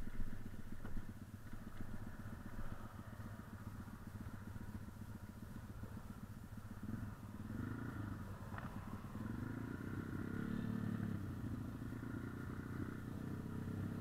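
Motorcycle engines idling with a steady low hum. The revs rise and fall twice in the second half.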